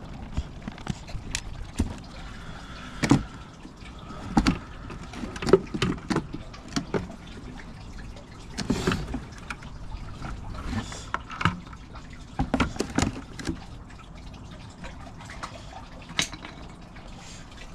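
Gloved hands handling a Pod Point EV charger's plastic casing in its cardboard box: irregular clicks, knocks and rustles as the front cover is lifted off.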